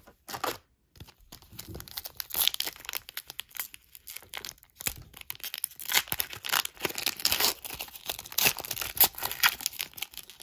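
Foil trading-card pack wrapper being torn open by hand and crinkled, a continuous crackling rustle from about a second in.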